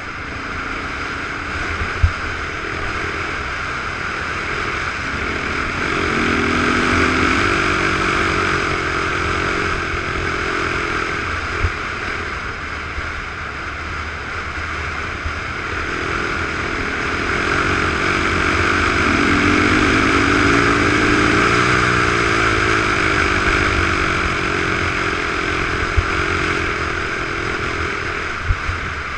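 Off-road vehicle's engine under way, over a steady rushing noise. The engine pitch rises and swells twice as it revs up, about a quarter of the way in and again past the middle. Three or four short knocks come from the rough ground.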